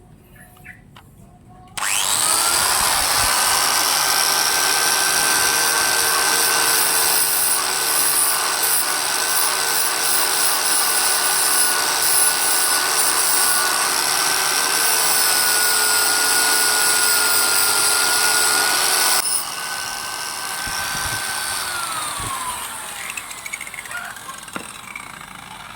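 Handheld electric power tool running under load with a steady whine for about seventeen seconds. The working noise then drops off suddenly, and the motor keeps spinning a moment before winding down with a falling whine.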